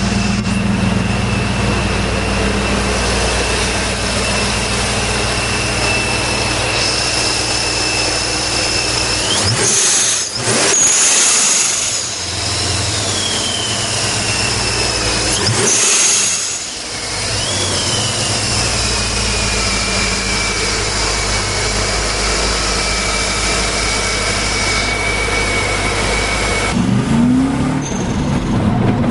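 Supercharged BMW V8 idling with a steady supercharger whine, revved sharply twice about six seconds apart; each time the whine shoots up and then slowly sinks back to idle. Near the end a different recording: an engine accelerating, heard from inside the car.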